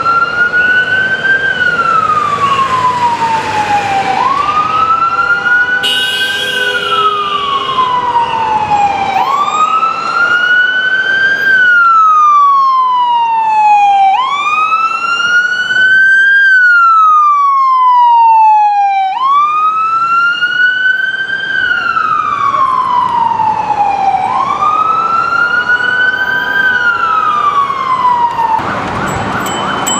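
Emergency vehicle siren in wail mode, sweeping slowly up and down about once every five seconds. A horn sounds briefly about six seconds in. Near the end the sound cuts abruptly to a different scene.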